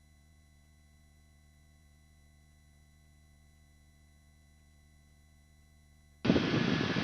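Faint steady electronic hum with several thin steady tones on a helicopter intercom line. About six seconds in, a loud rush of cabin noise cuts in abruptly as the intercom microphone opens.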